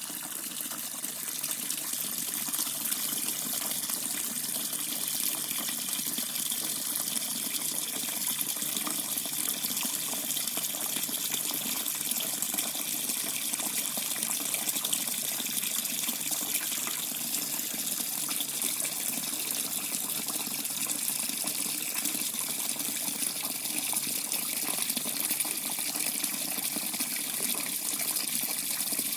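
Water running from a tap in a steady, unbroken stream.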